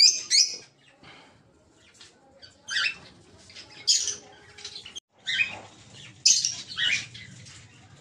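Cage birds calling in a colony room: short, high chirps and squawks in scattered bursts, with brief quiet gaps between them.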